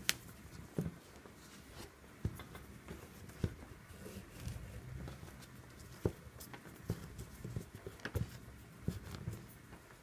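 Handling noise from paracord being pulled tight around a metal D-ring: faint, irregular clicks and taps with soft rubbing of the cord.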